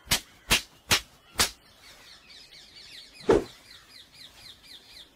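Four sharp, evenly spaced clicks about two a second, then a rapid run of high, falling chirps like a small bird's, about four a second. One loud thump comes about three seconds in.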